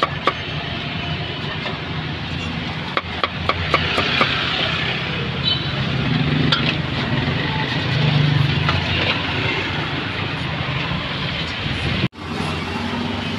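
Busy roadside street ambience: steady traffic noise with faint voices, and a short run of sharp knocks about three seconds in. The sound drops out for an instant near the end.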